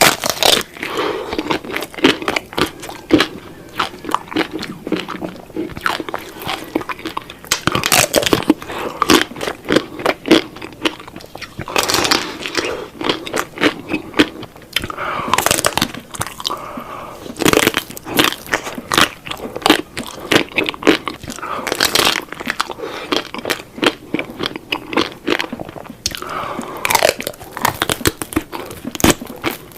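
A person biting and chewing crunchy food, with dense, irregular crunches throughout and a few short wet mouth sounds between bites.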